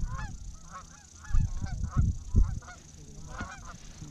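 Flock of geese honking, many short calls overlapping one another, with low gusts of wind buffeting the microphone.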